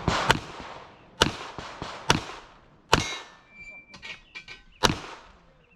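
Handgun shots fired one at a time during an IPSC stage, five shots about a second apart with a longer gap before the last, each ringing out with an echo. Fainter clicks and rattles fall in that longer gap.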